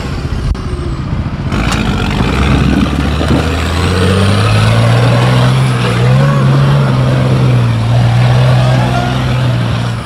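Rock crawler's engine working hard under load, its pitch climbing about three to four seconds in and then holding steady. A sharp knock comes about a second and a half in.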